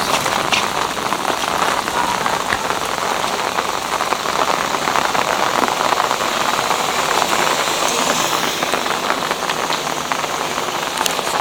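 Steady rain falling on the ground, a dense, even patter of drops.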